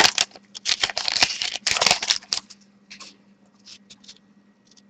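Foil trading-card pack wrapper being torn open and crinkled in quick crackly bursts for about two and a half seconds, then a few light rustles and ticks as the cards are handled.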